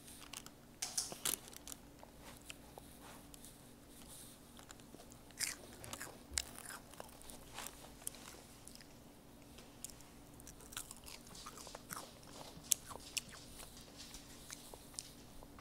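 Rice Krispie treat crackling and crunching as a child picks pieces off with his fingers and chews them: scattered small crisp clicks, over a faint steady hum.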